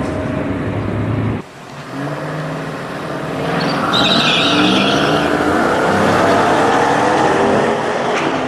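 Drag-strip V8 engines. For the first second and a half a race car runs down the track. After a sudden cut, a Dodge Challenger's V8 idles and revs in the staging lane, with a high-pitched squeal for a second or two around the middle.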